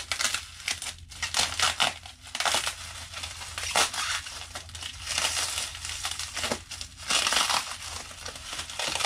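Plastic packaging rustling in irregular bursts as hands unwrap a small wrapped item.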